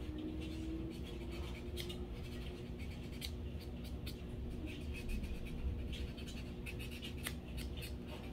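Nail buffer rubbed lightly back and forth over a fingernail, a run of quick, irregular, dry scratching strokes: buffing the shine off the natural nail so gel polish will hold.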